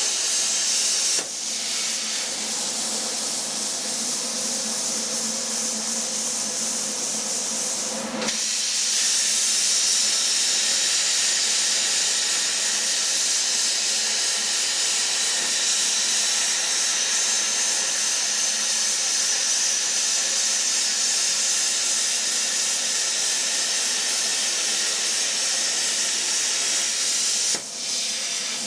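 CNC plasma cutter cutting half-inch plate: a steady hiss of the arc and its air jet, dipping briefly three times.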